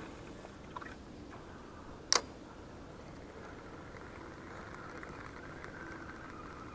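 Spinning reel: one sharp click about two seconds in, then the reel being wound with a faint, fine rapid ticking, as a lure is retrieved.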